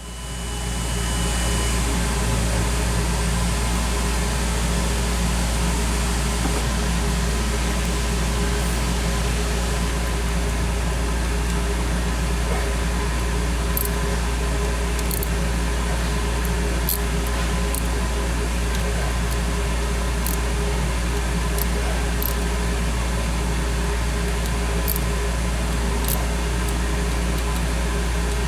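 Steady mechanical hum and hiss, like a fan running in a small room, with a few faint light clicks from about halfway on.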